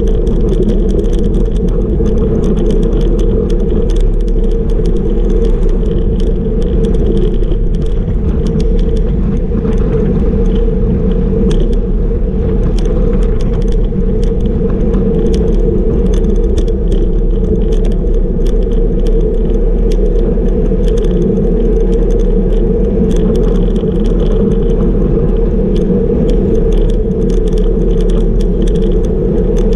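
Steady wind rush on the camera microphone and tyre noise on asphalt from a road bike ridden at about 38 km/h, with frequent small rattling clicks.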